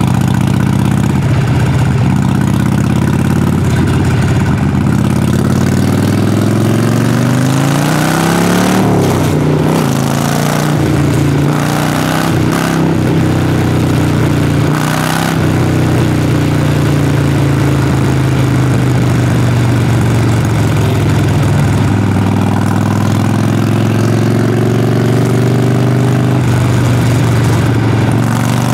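Harley-Davidson Sportster Forty-Eight's air-cooled V-twin exhaust under way. The revs climb over a few seconds, dip briefly a couple of times, settle into a steady cruise, then rise again near the end.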